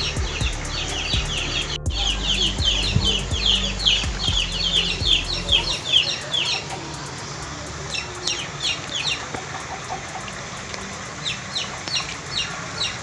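Birds chirping: a fast run of high, short, falling chirps, several a second, that thins after about six seconds into shorter, spaced bursts, over a low rumble that stops at about the same time.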